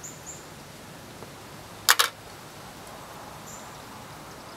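Two sharp plastic clicks in quick succession, about two seconds in, as small plastic plug adapters are handled and knocked or fitted together. A faint steady hum runs underneath.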